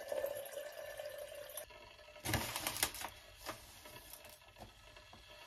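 Clicks and rustling of small kitchen items being handled: a plastic cone dripper set on a ceramic mug and a packet crinkled as its contents are tipped into the paper filter, loudest as a short cluster of clicks a little over two seconds in, with a few lighter ticks after.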